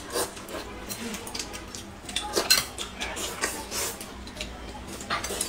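Eating sounds: chopsticks clicking against china plates and a soup bowl, with noodles being slurped in a few short, louder sucks.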